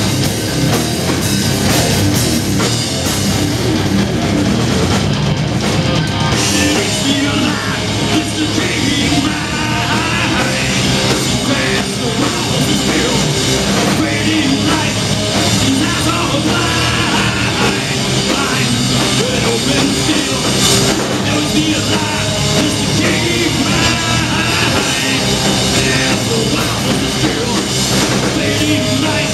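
A heavy metal band playing live, loud and without a break: electric guitar, bass guitar and a drum kit, with a man singing into the microphone.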